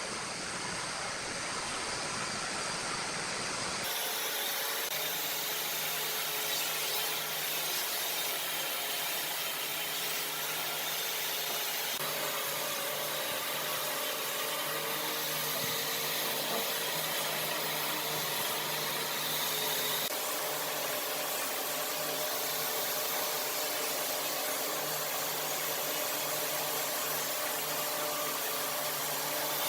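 A power tool running steadily as it works wood, with a steady hum under a noisy cutting sound. The first few seconds hold a different, hissy sound before the tool sound comes in.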